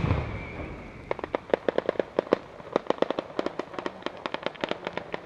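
Daytime fireworks battery in the San Severo style (batteria sanseverese). The rumble of a big ground-level blast dies away and a high whistle fades out. Then, from about a second in, comes a rapid, irregular string of sharp firecracker bangs, several a second.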